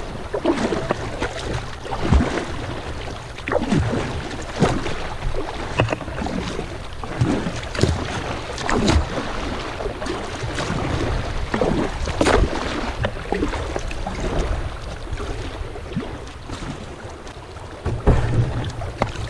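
Kayak moving through a shallow, rocky river riffle: water rushing and gurgling over stones, with irregular paddle splashes about once a second and a low rumble of wind on the microphone.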